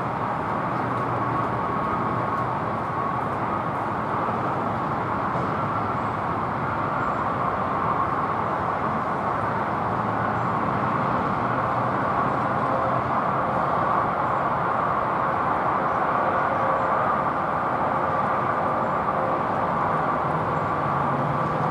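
Distant jet noise from a twin-engine regional jet with rear-mounted turbofans on landing approach: a steady rushing with a faint whine, and a low hum that grows slightly near the end.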